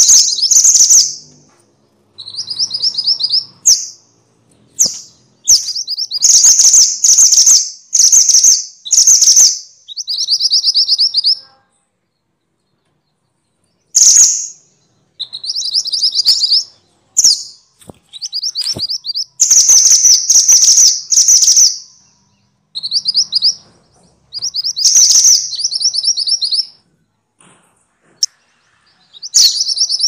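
Minivet (Pericrocotus) calling: loud phrases of rapid, high, thin trilled notes, each about a second long, repeated one after another with short pauses and one longer silence of about two seconds near the middle.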